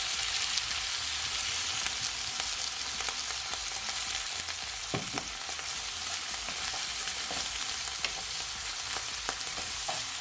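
Sliced onions, carrots and sweet peppers sizzling steadily in hot oil with white vinegar just poured in. Partway through, a wooden spoon stirs them, adding light scrapes and taps against the pan.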